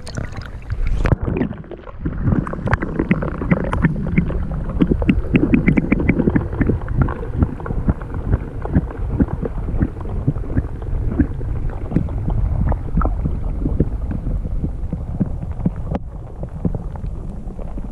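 Muffled underwater sound of lake water heard through a submerged camera: a steady low rumble of water against the housing, with many small clicks and pops that thin out after about ten seconds.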